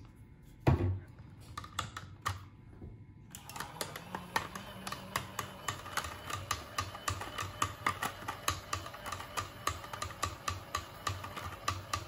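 A soap pump bottle pressed once with a thump near the start. About three seconds in, a small makeup brush washing machine starts up and runs with a steady hum and rapid, even clicking as the brush churns in its tub.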